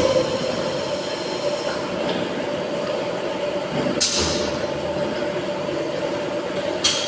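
Tilting-type air-jet bottle washing machine running with a steady mechanical hum. Three short bursts of hiss sound: one at the start, one about four seconds in, and one near the end.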